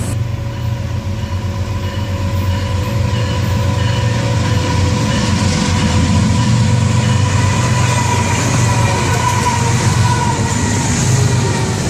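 BNSF freight train's diesel locomotives approaching and passing close by: a steady low engine rumble with wheel and rail noise, slowly growing louder as the lead units come alongside near the end.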